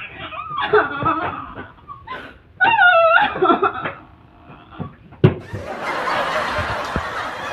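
A woman's exaggerated wailing cries in rising and falling phrases, then a single sharp thump about five seconds in as she drops onto a wooden bench, after which a steady rushing noise takes over.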